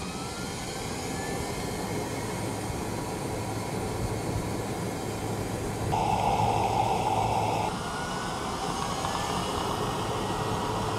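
E-Z-GO RXV electric golf cart driving under acceleration: a steady run of road and wind noise with its AC drive motor's faint whine rising in pitch. A louder stretch comes a little past the middle.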